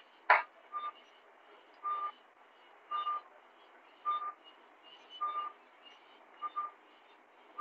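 Patient monitor in an operating theatre beeping about once a second, a short, steady mid-pitched tone each time with one quick double beep near the end. A sharp click comes just after the start.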